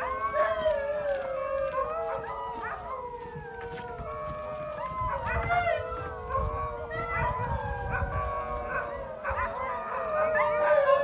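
A kennel full of sled huskies howling in chorus: many long, overlapping howls that rise and fall in pitch.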